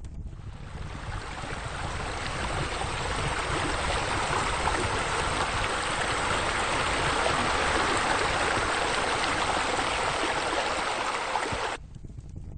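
Steady rushing water like a stream or fountain, fading in over the first couple of seconds and cutting off suddenly near the end, over a low rumble.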